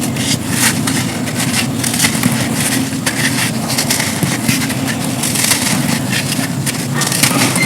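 Dry slabs of black sand being crumbled, breaking into a dense run of crisp crunches and crackles, over a steady low rumble.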